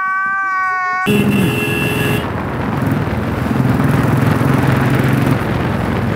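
A man's drawn-out wailing cry that cuts off about a second in. It gives way to a Royal Enfield Bullet's single-cylinder engine running while riding, with wind rushing over the microphone.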